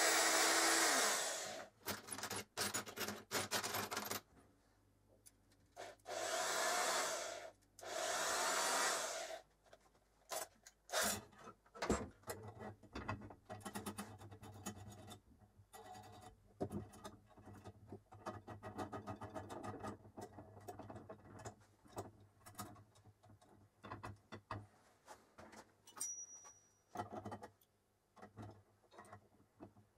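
Metal parts of a home-built mini lathe being fitted by hand: metal rubbing and scraping in several bursts of a second or two as the threaded lead screw is worked into the bed, then many small clicks and knocks of metal parts being handled and fitted.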